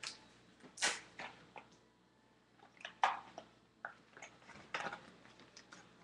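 A string of light clicks and rustles from objects being handled, the loudest about a second in and about three seconds in.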